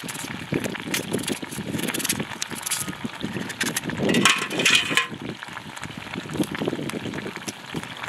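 Kitchen knives slicing raw potatoes in the hand, a rapid irregular run of crisp cuts, with the slices dropping into a pot of wet meat sauce.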